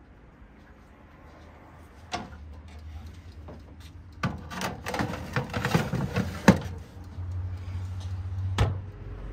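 A few knocks and a run of clatter, like objects being handled and set down: one sharp knock about two seconds in, a dense run of knocks from about four to six and a half seconds, and one more knock near the end, over a low steady hum.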